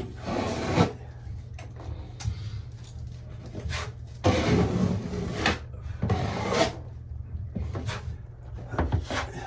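A hand tool scraping and rubbing in irregular strokes against drywall, about five strokes of half a second to a second each, the longest about four seconds in, over a steady low hum.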